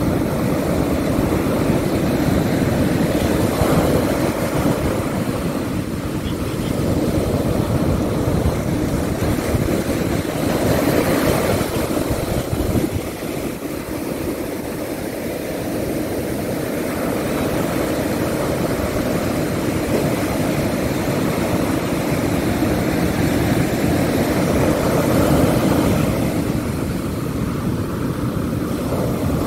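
Ocean surf breaking on a beach: a steady, low rumbling wash that swells and eases every several seconds as the waves come in.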